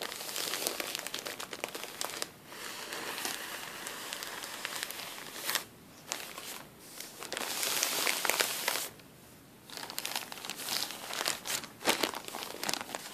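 Thin plastic bag full of cotton balls being squeezed and crinkled by hand, in long crinkling stretches broken by short pauses, loudest about eight seconds in, with a few sharper crackles near the end.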